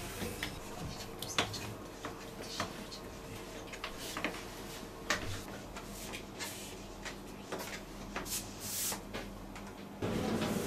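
Scattered light clicks and knocks of hands and utensils at kitchen work, over a faint steady hum. Near the end the background hum steps up louder.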